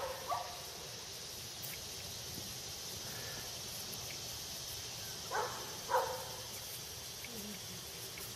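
A dog barking: once right at the start, then two barks about half a second apart between five and six seconds in, over a steady high insect buzz.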